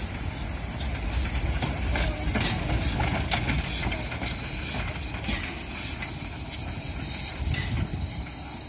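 Steam tank locomotive 310.0134, a small ČSD class 310 two-cylinder engine, running past at low speed: exhaust beats from the chimney and clanks and knocks from the running gear over a low rumble of the wheels on the rails.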